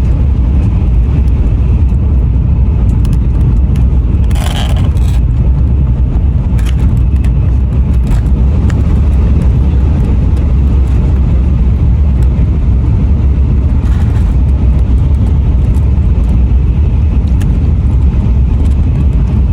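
Shinkansen bullet train at speed, heard from inside the carriage as a loud, steady low rumble. A short hiss or rustle comes about four seconds in.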